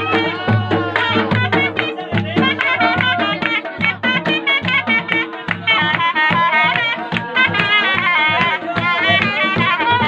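Chitrali dhol-surnai folk music: a dhol drum beating a steady dance rhythm under a shrill, wavering reed-pipe melody of the surnai.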